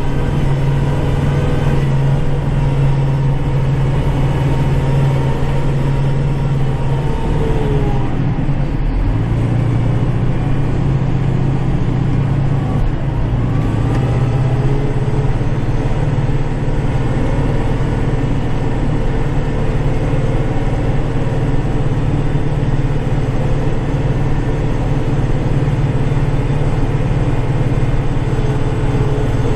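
Kubota tractor's diesel engine running steadily under load while snow plowing. Its pitch dips briefly about eight seconds in, then picks back up.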